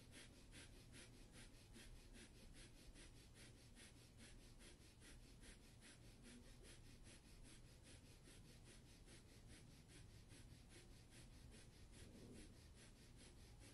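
Faint breath of fire: quick, even, forceful exhalations through the nose, about three a second, each one pushed out by a pump of the navel.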